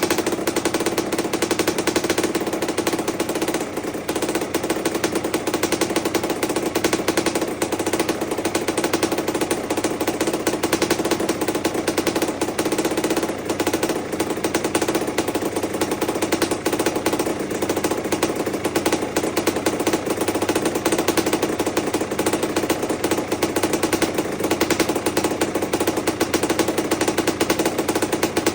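1984 Honda CR250's single-cylinder two-stroke engine running steadily just above idle, a rapid even stream of firing pulses.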